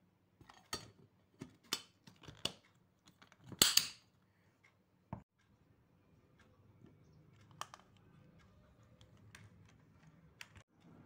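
Clicks and knocks of a steel mixer-grinder jar being handled: the lid set on and its plastic clips snapped and unlatched. The loudest is a short noisy clatter about four seconds in, followed by a few faint ticks.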